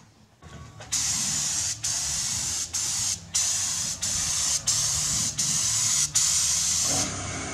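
Compressed-air gravity-cup spray gun spraying a coating in about eight short hissing passes, the trigger pulled and released roughly every second, with a low hum underneath.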